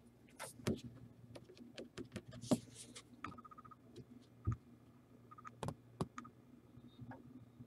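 Faint, scattered light clicks, taps and rustles of trading cards and plastic card holders being handled.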